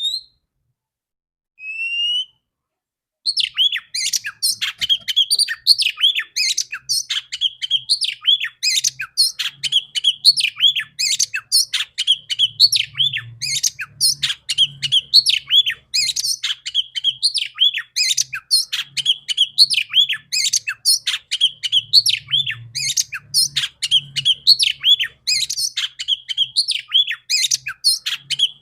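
Female oriental magpie-robin (kacer) calling: two short rising whistles, then from about three seconds in a fast, continuous run of harsh chattering notes.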